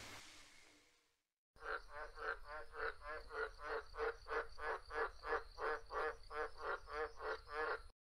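A frog croaking over and over in an even series, about three croaks a second. The calls start abruptly about a second and a half in and cut off abruptly near the end.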